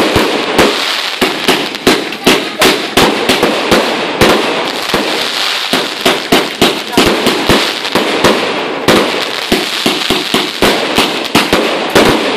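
Firework battery (cake) firing a rapid, irregular string of shots: several sharp bangs a second over continuous crackling.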